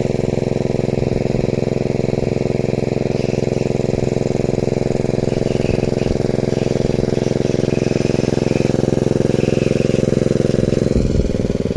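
Small engine running steadily, driving a water pump that draws water out of a muddy fish pit through a blue pipe.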